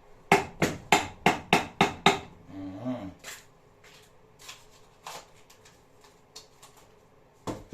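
Knife chopping spring onion on a cutting board: seven sharp chops at about three a second, then scattered lighter taps.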